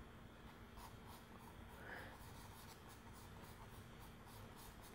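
Faint scratching of a pencil shading on drawing paper, a run of short, quick, light strokes.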